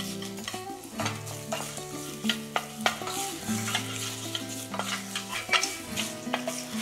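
Wooden spoon stirring cod tripe as it fries with chorizo and ham in oil in a stainless steel saucepan, with repeated sharp knocks of the spoon against the pan. Steady held tones sound underneath.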